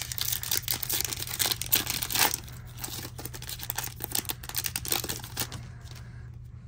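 Foil wrapper of a Topps Chrome baseball card pack being torn open and crinkled by hand: a dense crackling, loudest in the first two seconds, that thins out and stops about six seconds in.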